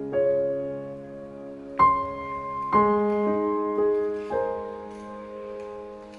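Slow, gentle background piano music: notes and chords struck every second or so and left to ring out, the loudest about two seconds in.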